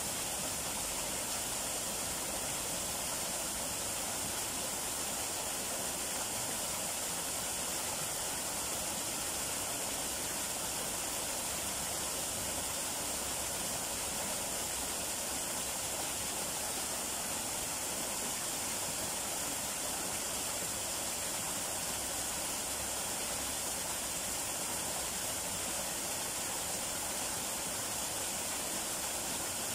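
Small waterfall pouring in thin streams down a rock face into a shallow pool: a steady rush of falling, splashing water.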